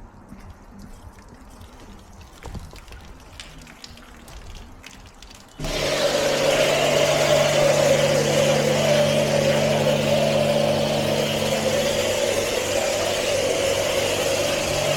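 Car wash machinery switching on suddenly about five and a half seconds in: a loud, steady whir with a spraying hiss and a steady hum. Before that, only faint scattered drips and ticks.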